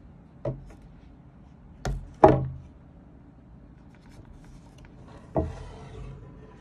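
Handmade frame hand drum struck four times with its beater, each hit leaving a short low boom. Two of the hits come close together near two seconds in, the second of them the loudest. The last hit, about five seconds in, is followed by a brief rustle.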